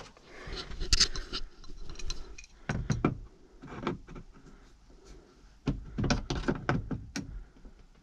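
Metal hand tools clinking and knocking as a wrench is pulled from a cluttered armrest storage bin and fitted to a bolt in the tractor cab's roof lining: a series of separate sharp clinks and clunks.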